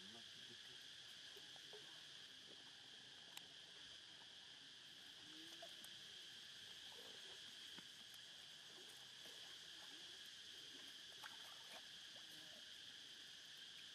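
Faint, steady, high-pitched drone of insects in the background, with a couple of faint clicks.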